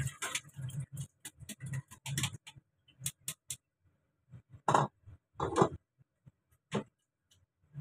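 Dishes and a plastic colander handled on a kitchen counter: a quick run of light clicks and taps in the first few seconds, then three louder clattering knocks.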